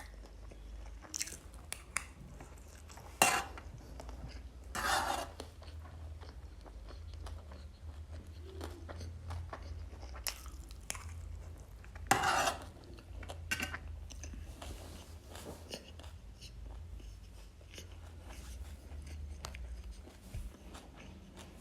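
Close-miked eating: chewing and mouth sounds with small clicks of a spoon on a plate, and a few louder bursts about 3, 5 and 12 seconds in. A steady low hum runs underneath.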